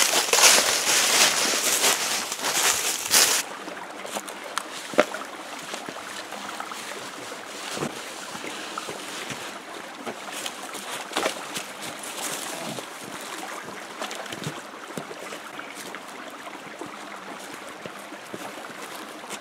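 Footsteps crunching and rustling through dry fallen leaves close up, then, about three and a half seconds in, a shallow creek running over rocks as a steady hiss with scattered footsteps and knocks.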